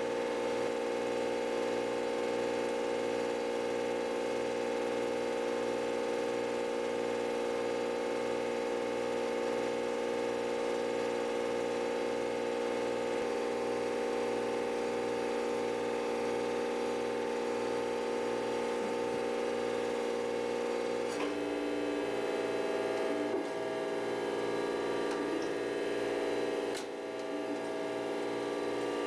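Surface grinder running with a steady motor hum made of several tones; the hum shifts to a different set of tones about twenty seconds in.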